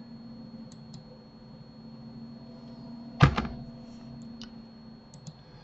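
A few light computer mouse clicks over a low steady hum, with one loud short thump about three seconds in.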